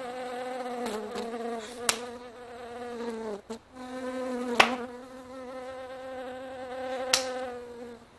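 An insect buzzing steadily, breaking off briefly about halfway through. Three sharp slaps land about two and a half seconds apart as someone swats at it.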